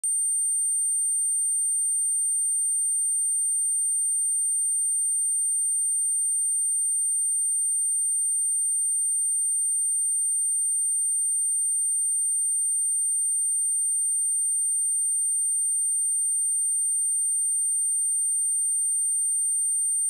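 A pure 8855 Hz sine test tone, high-pitched and held steady at one unchanging pitch and level, played as a speaker test and speaker-cleaning tone.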